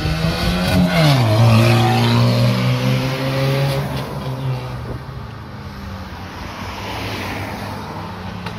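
A car accelerating and passing close by: its engine note climbs, drops sharply as it goes past about a second in, then holds steady and fades as it drives away. A second car passes more quietly near the end.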